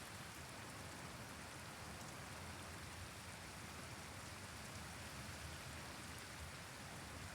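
Steady rain from a thunderstorm, falling evenly without a break.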